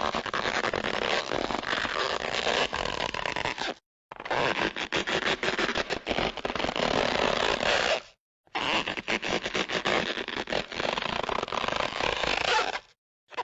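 Cartoon stretch sound effects: three stretches of about four seconds each, dense and crackly, separated by short silent gaps.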